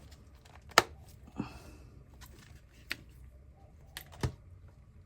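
Scattered clicks and knocks of hands handling and working on the parts of a cordless vacuum cleaner during servicing, about five in all, the loudest a second in and near the end.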